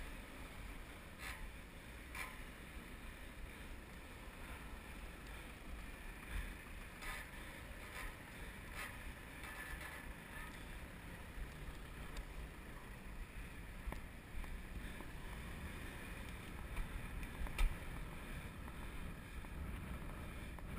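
Street traffic passing, cars going by over a steady low rumble of wind on the microphone, with a few short clicks, the sharpest of them late on.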